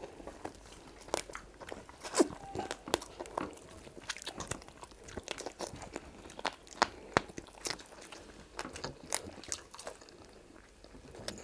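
Chewing of fufu and egusi soup, close to the microphone: wet mouth clicks and smacks at an irregular pace.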